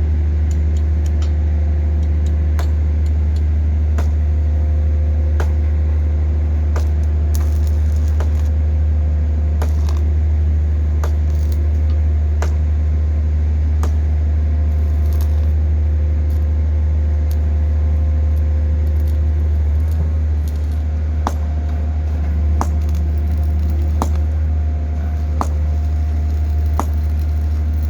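Hydraulic static pile driver running steadily: a loud, deep, continuous hum with a few fainter steady higher tones, and scattered short metallic clicks and ticks throughout.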